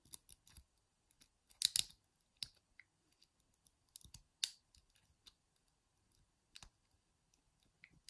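Wire lock pick scrubbing and clicking against the levers inside a small Squire 220 lever padlock held under tension: scattered faint clicks and scrapes, the loudest cluster near two seconds in and another a little after four seconds.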